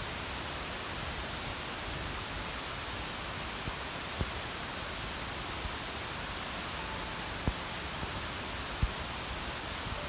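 Steady, even hiss with a few faint soft knocks about four, seven and a half and nine seconds in; no bird calls stand out.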